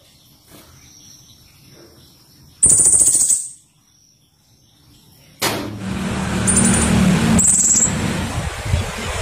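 A pentis raja bird giving very high, rapid chattering trills: one loud burst about three seconds in and two short ones later. From about halfway a loud, steady rushing noise with a low hum sets in underneath.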